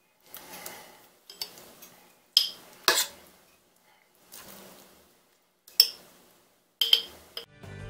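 Metal spoon scooping and scraping thick strawberry jam in a stainless steel pot, with about five sharp clinks of the spoon striking metal or the glass jar.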